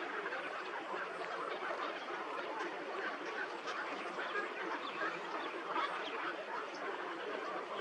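Many birds calling at once, a dense, overlapping chorus of honking and quacking calls with no pauses.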